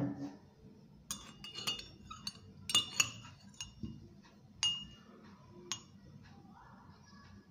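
A scatter of light clinks and taps of kitchenware (measuring spoon, bowls, bottle) on a tabletop, some with a short ring, as a tablespoon of oil is measured out. The clinks are loudest about three seconds in and again just before five seconds.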